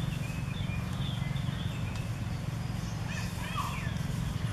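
Outdoor ambience: a steady low rumble with a few short, high chirping calls scattered through it, and a small cluster of squeaky calls about three seconds in.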